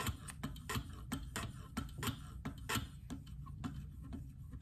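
KME guided knife sharpener in use: a kangaroo-leather strop with 4-micron CBN emulsion worked back and forth along a clamped knife blade on its guide rod. The strokes make a quick, irregular run of light clicks and taps, about three or four a second.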